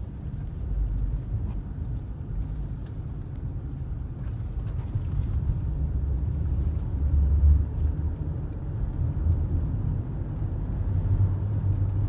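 Steady low rumble of a car driving on a paved road, heard from inside the car: mostly tyre and engine noise, getting a little louder towards the end.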